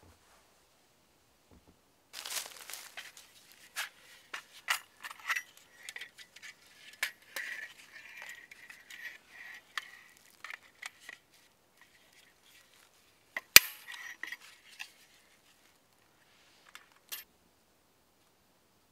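Agawa folding bow saw being unfolded and assembled by hand: the metal frame and blade clink and rattle in irregular clicks, starting about two seconds in. A sharp click about two-thirds of the way through is the frame or blade locking into place, and a couple of light clicks follow near the end.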